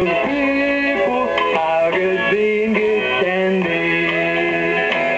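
Music with a melody of held notes that step and glide between pitches.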